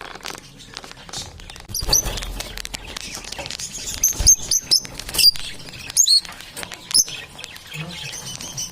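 Small birds giving short, high squeaky chirps, several in quick succession from about two seconds in, over a steady patter of scratching and rustling clicks.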